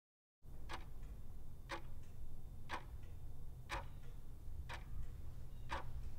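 Steady ticking, one sharp tick about every second, over a low hum, starting just under half a second in after dead silence.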